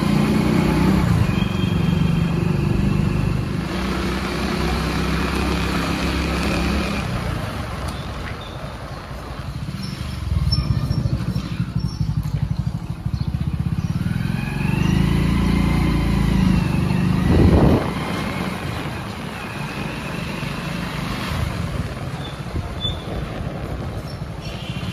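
Motor vehicle engines passing along a street: one runs through the first several seconds, and another goes by about fourteen to seventeen seconds in, its pitch rising then falling. A short thump sounds near seventeen and a half seconds, and a quieter street background fills the rest.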